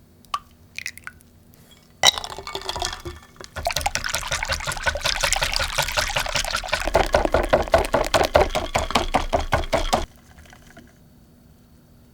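Cream and mascarpone being whipped in a bowl: rapid, rhythmic wet sloshing with the whisk clicking against the bowl. It starts about two seconds in, runs for about eight seconds and stops suddenly.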